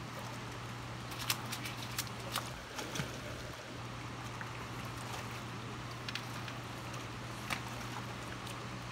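Steady rush of creek water flowing below a dam, with a low steady hum underneath and a few scattered sharp clicks.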